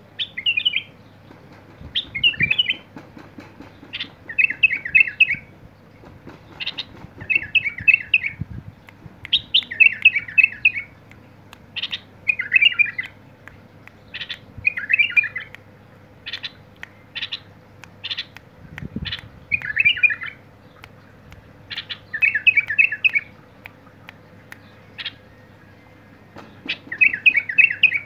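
White-eared bulbul singing in its cage: short warbled phrases of about a second each, repeated every two to three seconds, with single sharp call notes between them.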